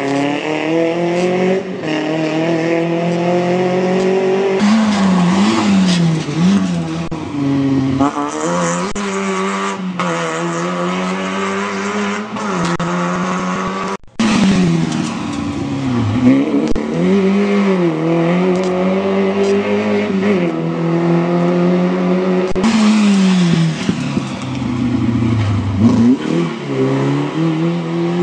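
Rally car engines being driven hard, revving up through the gears with repeated sharp drops in pitch at each lift or shift. There is a short break about halfway, after which a second car is heard doing the same.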